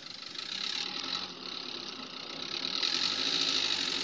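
Dacia Duster 4x4's engine running at low revs as the SUV crawls slowly over deep off-road ruts, under a steady high hiss.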